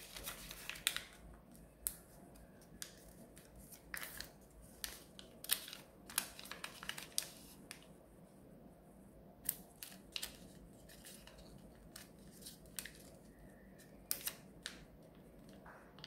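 Sheet of origami colour paper being folded and creased by hand on a hard tabletop: short, irregular crackles and rustles as the paper is bent and the folds are pressed flat.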